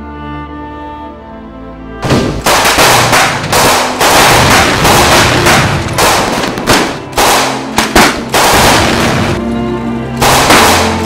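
Sad string music with held notes, then from about two seconds in loud, rapid gunfire from a film battle scene over the music, easing briefly and picking up again near the end.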